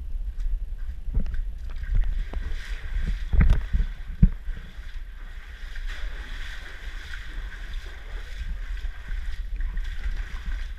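Someone wading through shallow seawater: splashing steps and a few sharp knocks over the first four seconds or so, then a steady watery hiss.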